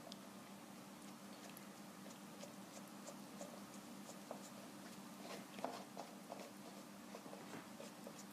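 A cat licking ice cream out of a paper pint carton with its head inside it: faint, irregular little licking clicks and scrapes against the carton, with one louder click about five and a half seconds in, over a low steady hum.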